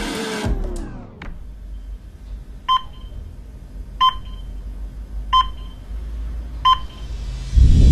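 Soundtrack sound effects. A sound falls in pitch and dies away in the first second, then four short electronic beeps come about 1.3 seconds apart over a low hum. Near the end a loud rising noise swell comes in.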